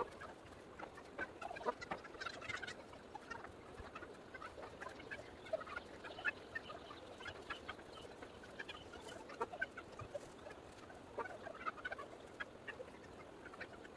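Chickens clucking faintly in short, scattered calls, with a few light knocks.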